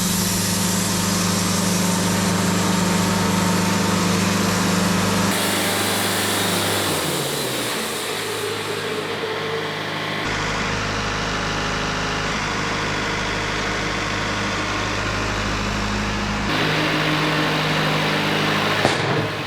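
Wood-Mizer LT70 sawmill's diesel engine running with the band blade sawing through a pine log. The engine's pitch drops about seven seconds in, and the sound changes abruptly several times.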